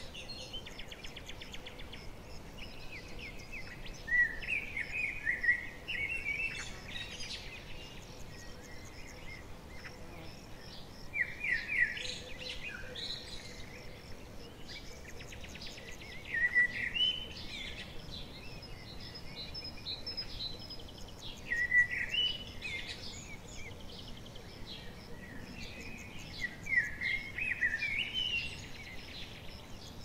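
A small songbird singing short, quick phrases of rapid notes about every five seconds, over a steady low background hiss.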